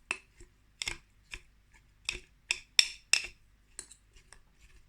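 A spoon clinking against the side of a bowl while stirring a mixture, in a series of about nine irregular clinks, roughly two a second.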